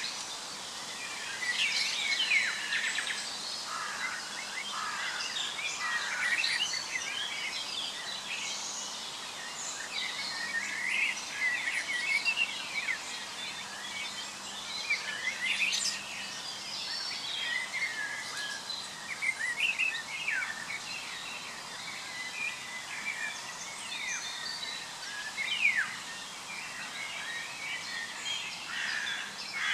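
Several birds singing and chirping at once: a busy, unbroken mix of short whistled calls, trills and quick downward-sweeping notes.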